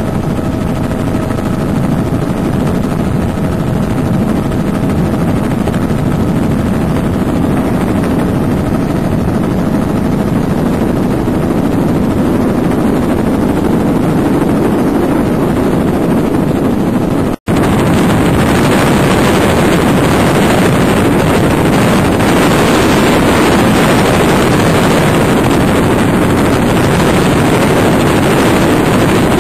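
Helicopter in flight: loud, steady engine and rotor noise. It drops out for an instant a little over halfway through and comes back louder and brighter.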